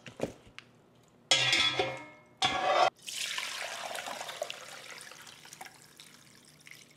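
Two loud scrapes, then chicken bone broth pouring from a heavy pot through a fine-mesh strainer into a glass container. The pour is a steady splashing that slowly tapers off.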